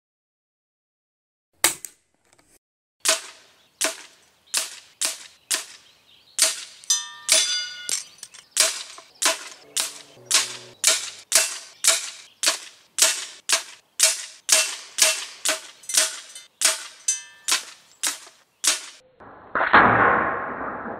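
A quick run of sharp shots from a Daystate Red Wolf .177 PCP air rifle, about two cracks a second with short decaying tails, after a single shot. Near the end there is a louder rushing noise about a second and a half long.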